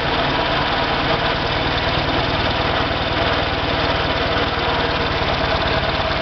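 1938 Viking Standard Twin garden tractor's engine running steadily at low throttle with an even pulse, pulling the cart slowly forward in low range.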